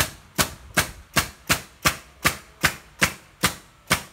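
Pneumatic nail gun firing nails into wooden pallet boards, a rapid, even run of sharp shots about two and a half a second, roughly a dozen in a row.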